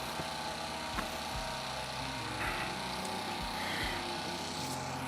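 A steady low engine drone with a few faint knocks.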